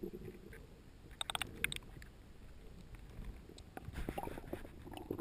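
Underwater noise picked up by a diver's camera: a low, muffled water rumble, with a cluster of sharp clicks and ticks about a second and a half in and more clicks near the end.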